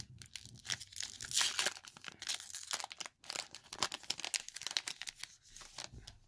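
Foil-lined wrapper of a Gypsy Queen baseball card pack being torn open and crinkled in the hands, a dense crackling that thins out near the end as the cards are slid out.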